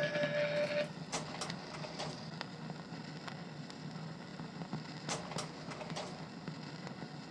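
A held musical note stops about a second in, leaving a slide projector's steady fan hum broken by several pairs of sharp clicks as its slide-change mechanism advances.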